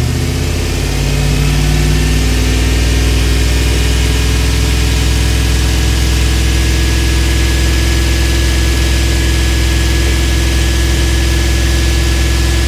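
Chevrolet Express van's V8 engine held at steady raised revs under the throttle, rising a little about a second in and dropping back toward idle at the end. The engine has a cylinder 1 misfire, which the mechanic finds shows only at idle.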